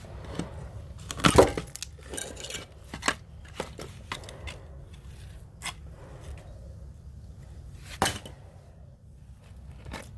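Irregular knocks, clatters and scrapes of broken concrete and dirt being dug out by hand around a buried drain pipe, with two sharper knocks, about a second in and near eight seconds.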